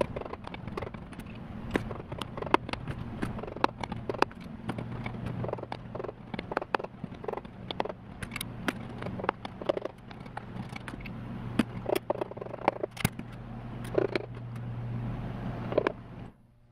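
A rubber mallet tapping a piston crown, driving the piston and its rings out of a ring compressor into a cylinder bore of a Subaru EJ25 block: many quick taps at irregular spacing. A steady low hum runs beneath, and everything cuts off just before the end.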